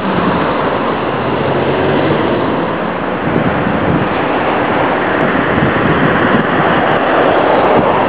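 Steady rushing noise of road traffic on a city street, with wind on the microphone; a low engine hum fades out in the first second or two.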